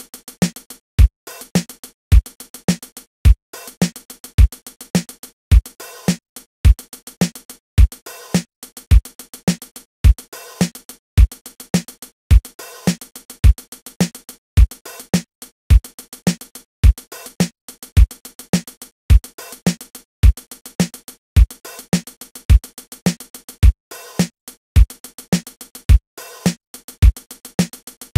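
Drum kit playing a steady beat: kick on beats one and three, snare on two and four, and a hi-hat part of eighth notes filled out with extra sixteenth notes. The hi-hat pattern changes with every measure, each a little over two seconds long.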